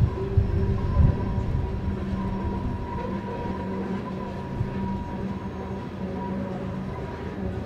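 Loaded coal hopper cars rolling slowly upgrade across a steel trestle: a steady low rumble of wheels with a thin high tone over it, and a couple of knocks at the start and about a second in.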